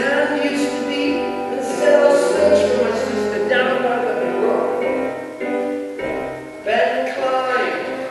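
Live acoustic song: a man singing over acoustic guitar, with a brief break in the vocal line about six seconds in.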